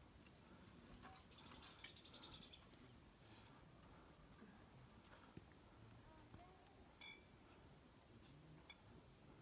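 Faint cricket chirping steadily, a little over two short high chirps a second. About a second in, a louder buzzing trill rises over it for about a second. A single short call sounds about seven seconds in.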